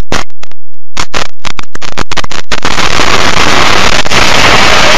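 Loud, overloaded wind and road rush on the camera microphone of a moving vehicle. It cuts in and out in choppy bursts for the first two and a half seconds, then runs steadily.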